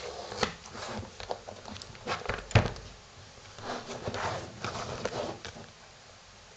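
A pen picking and scratching at the plastic shrink-wrap on a small cardboard box. There are scattered sharp taps, the loudest about two and a half seconds in, and then a stretch of plastic crinkling and rustling.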